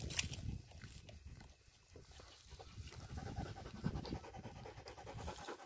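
A dog panting close by, a fast, even run of breaths that is most marked in the second half.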